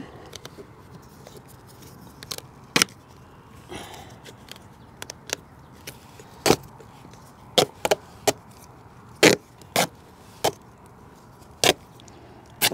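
About a dozen irregular sharp clicks and light knocks as hands work a corrugated plastic vent hose into its deck fitting.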